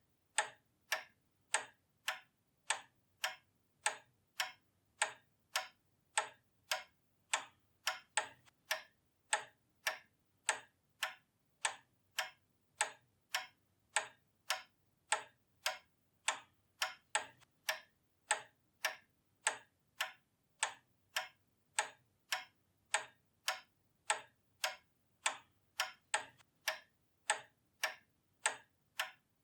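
Pendulum clock ticking steadily, about two even ticks a second.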